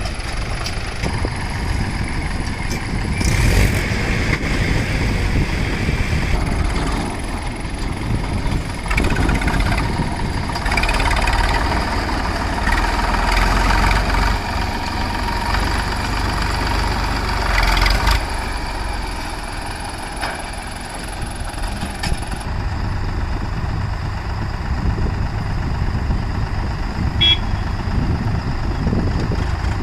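Diesel engines of a farm tractor and a JCB backhoe loader running steadily, with a few brief knocks.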